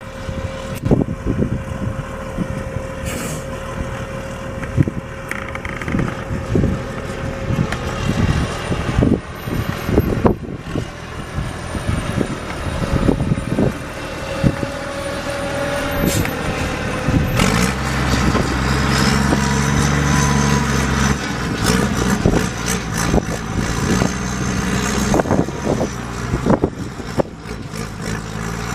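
Case wheel loader's diesel engine running as the front bucket digs into dirt, with frequent knocks and clanks. The engine note grows heavier and fuller about two-thirds of the way through.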